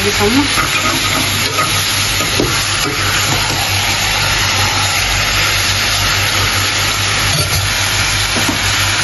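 Raw chicken pieces with onion frying in oil in a steel kadai, sizzling steadily as they are stirred and tossed with a metal slotted spoon.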